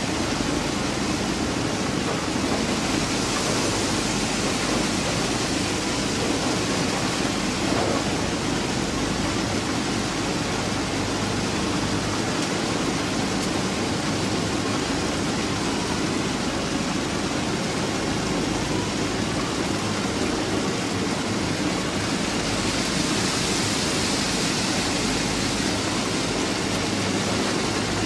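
Plasser & Theurer PM 1000 URM track rehabilitation machine at work: a steady, dense mechanical noise of engines, conveyors and pouring ballast and gravel. The hiss brightens twice, a few seconds in and near the end.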